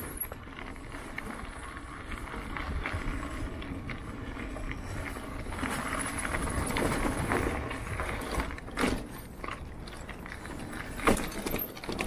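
Mountain bike rolling along a dirt singletrack: steady tyre and riding noise, with a few sharp knocks in the last few seconds as the wheels go over rocks.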